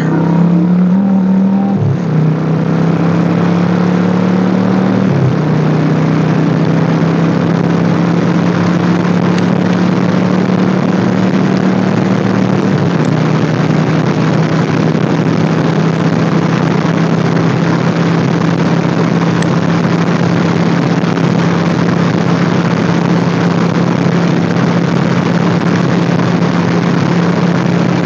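Motorcycle engine pulling away and shifting up twice in the first five seconds, then cruising at a steady engine note, under a heavy rush of wind and road noise.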